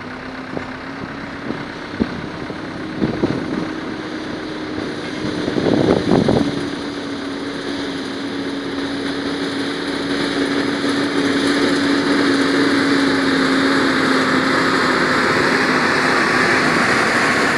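A vehicle engine running steadily, growing louder from about halfway through as the vehicle drives closer. There are a few knocks early on and a louder clatter about six seconds in.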